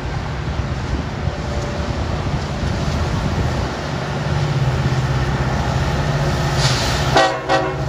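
Norfolk Southern diesel freight locomotives running as the train approaches, a steady low engine drone that grows stronger about halfway through. Near the end comes a short, loud pitched sound, broken once.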